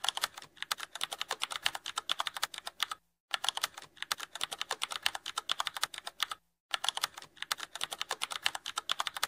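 Rapid computer-keyboard typing: a quick, even run of keystroke clicks that stops briefly about three seconds in and again about six and a half seconds in.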